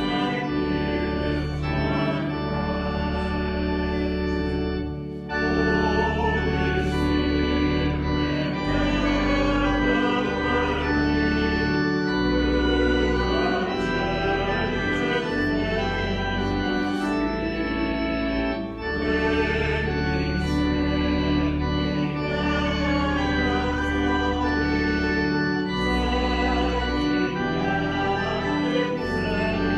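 Organ playing slow, held chords, the bass note changing every few seconds, with two short breaks between phrases.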